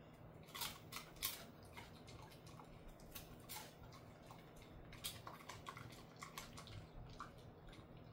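A dog chewing a dried pollack treat: faint, irregular crunching clicks from its mouth.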